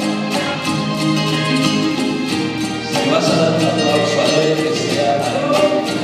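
A man singing through a microphone over instrumental backing music.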